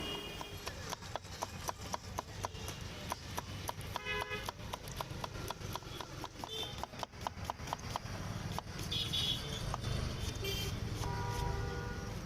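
Rapid, even clacking of a metal utensil at a jhal muri stall, about four or five knocks a second, stopping about two-thirds through, over a low street hum, with a few short pitched tones late on.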